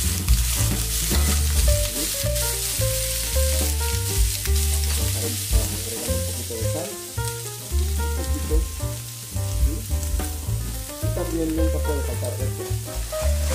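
Green beans and carrots sizzling in garlic oil in a stainless steel skillet, tossed in the pan near the start. Background music with a bass line plays underneath.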